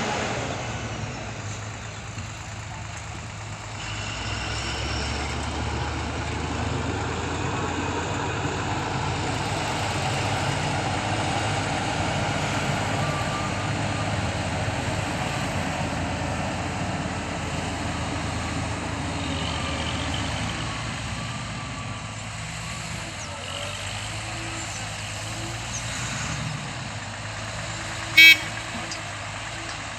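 Steady rumble of trucks and road traffic, swelling for a while and then easing as vehicles pass. A short, loud, pitched blip comes near the end.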